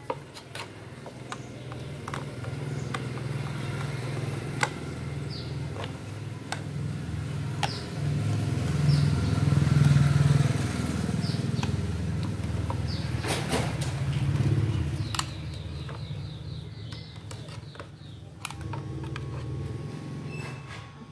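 Low, uneven rumble of a motor vehicle engine running, loudest about halfway through and easing off afterwards, with scattered light clicks and taps as a circuit board is handled.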